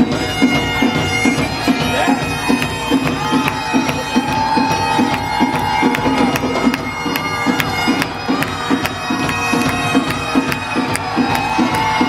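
Bagpipes playing a tune over their steady drone, with drums beating a regular rhythm.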